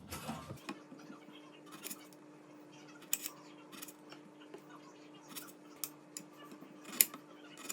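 Knife cutting cherry tomatoes on a cutting board: sharp, irregular clicks of the blade striking the board about once a second, over a faint steady hum.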